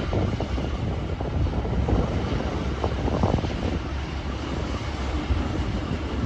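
Train rolling by with a steady low rumble and irregular knocks from wheels and cars.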